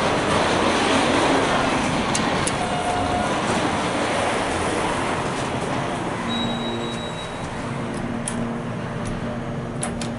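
Steady rumbling noise around a 2001 Schindler 300A hydraulic elevator as its car is entered. A low steady hum sets in about six seconds in, and a car button clicks near the end.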